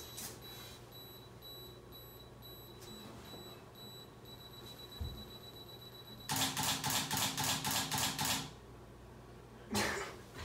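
Phone camera self-timer counting down with short high beeps that quicken and run into one steady tone, then a rapid burst of about ten shutter clicks as the phone takes a burst of photos.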